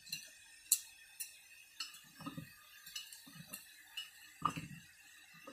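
Irregular light metal clinks and taps, about ten, from a blacksmith's hand hammer and tongs on a steel bush fitted over a threaded trolley tow rod at the anvil. Some come with a dull thud; the sharpest clink comes a little under a second in.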